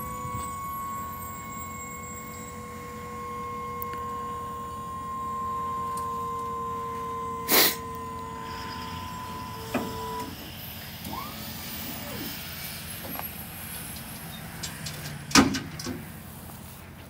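Electric-hydraulic pump motor on a trailer's hydraulic dovetail, whining steadily as it raises the ramp section, then cutting off about ten seconds in. A loud metallic knock comes about halfway through and another near the end.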